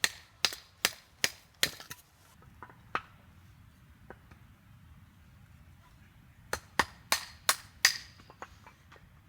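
Firewood being chopped: a run of five sharp wooden strikes about two and a half a second, a few lighter knocks, a pause of some three seconds, then another run of about five strikes.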